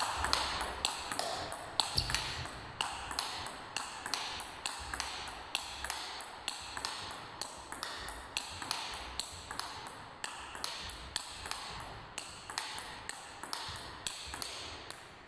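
Table-tennis ball clicking off a penholder bat with pips-out rubber and off the table in a fast, steady backhand push-block rally, about three hits a second, growing fainter toward the end.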